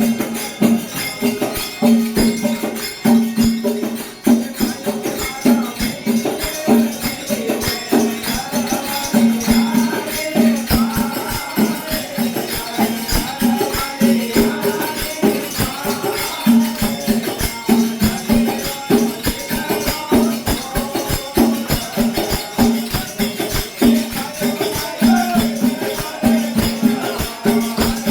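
Rajasthani folk music, instrumental: a held drone note and a melody line over a fast, steady beat of shaken, jingling percussion.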